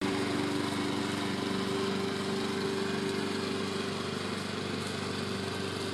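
Petrol lawn mower engine running steadily at a constant speed.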